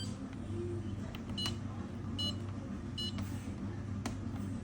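Whirlpool dishwasher control panel beeping: three short high electronic beeps, about a second apart, over a steady low hum.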